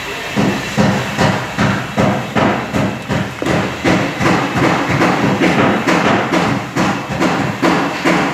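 Repeated sharp knocks, about two to three a second, starting about half a second in and continuing without a break.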